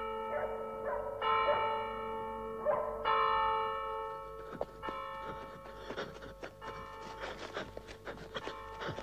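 A bell striking midnight in slow strokes about two seconds apart, each ringing on and dying away. The strokes mark the turn of the new year. After the last stroke the ringing fades under scattered light clicks and knocks.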